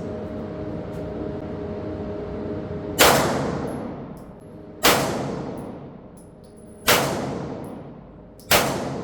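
Four single gunshots from a Foxtrot Mike FM9 9mm AR-style pistol, fired slowly about two seconds apart, the first a few seconds in, each followed by a long echoing decay.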